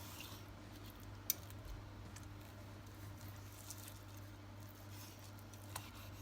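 Faint steady hum with a few soft, sharp clicks of a steak knife and fork against a plate while steak is being cut.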